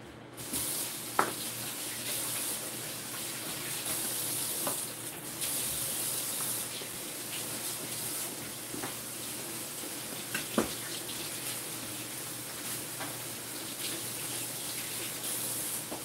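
A kitchen tap running steadily, with two sharp clicks of a spoon against a mixing bowl as batter is stirred, about a second in and again near two-thirds of the way.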